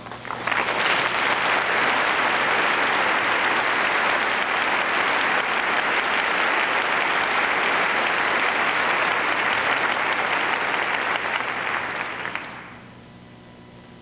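Theatre audience applauding and clapping steadily for a ballerina's bow. The applause starts about half a second in, holds for some twelve seconds and dies away near the end.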